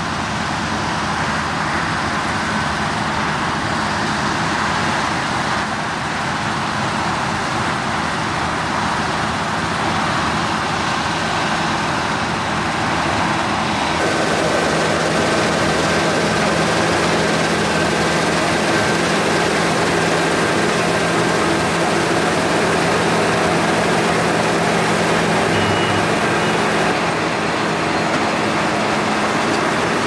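Claas Lexion 8800 combine harvester running while harvesting wheat: a steady engine drone under dense machinery noise from the header and threshing. The sound changes abruptly about halfway through.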